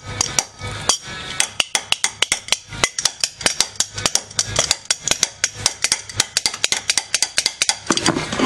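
Rapid metal-on-metal hammer blows, about six a second, striking a Pontiac Sunfire's steering knuckle at the upper ball joint to shock the joint's tapered stud loose.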